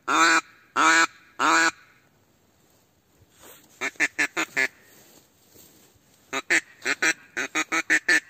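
Mouth-blown duck call sounding four long, loud quacks, then after a pause a quick run of about five short quacks and, near the end, a longer run of about ten short quacks, calling in ducks.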